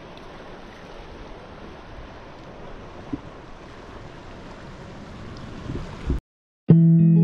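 Steady rush of river water with wind on the microphone and a few faint handling knocks. Just before the end it cuts out to a moment of silence, then guitar music starts.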